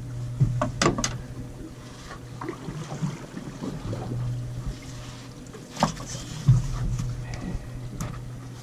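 Steady low hum of the fishing boat's engine, with a few sharp knocks and clatters from handling in the cockpit.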